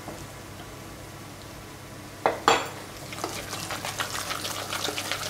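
Spoon stirring a wet chopped chicken and vegetable mixture in a stainless steel mixing bowl. Two sharp clinks against the bowl come a little over two seconds in, then a run of quick scraping and clicking.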